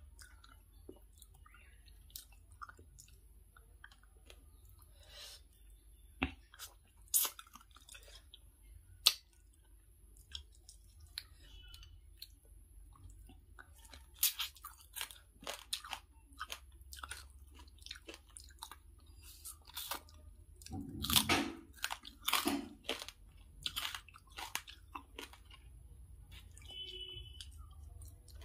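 Close-up chewing and crunching of rice and fried katla fish eaten by hand, with scattered wet mouth clicks and smacks. The loudest crunching bunches together about three-quarters of the way through.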